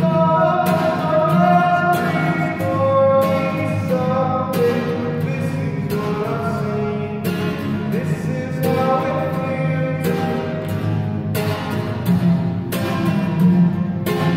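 A man singing long held notes while strumming an acoustic guitar, with a chord struck about every second and a half.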